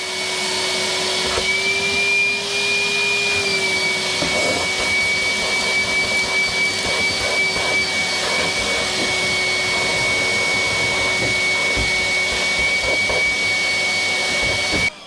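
Vacuum cleaner running with its hose pressed onto a blocked marine-toilet waste pipe, a steady whine over the rush of suction. The pitch rises briefly about two seconds in, and the motor cuts off just before the end. It is sucking the packed toilet tissue up out of the pipe.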